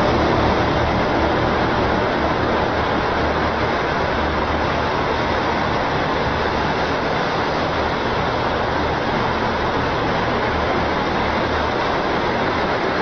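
Loud, steady rumbling roar with a low droning hum beneath it, one of the mysterious 'strange sounds in the sky' recordings.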